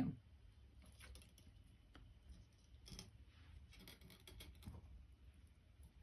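Faint clicks and scratching of thin copper wire being pulled tight through the wire rings of a bracelet connector by hand.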